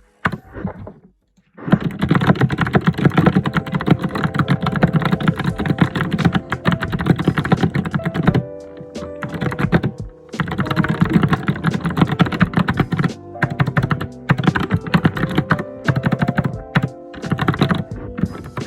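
Fast, busy typing on a computer keyboard: a dense run of key clicks and thuds that breaks off for short pauses a few times.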